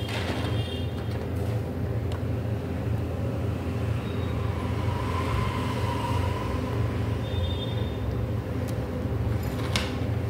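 Steady low machine hum, like an appliance motor running, with a faint click near the end.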